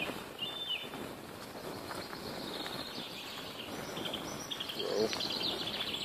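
Woodland birds singing: a few short whistled notes near the start, then a fast trilling song through the second half, over the rustle of footsteps on the leaf-littered forest floor.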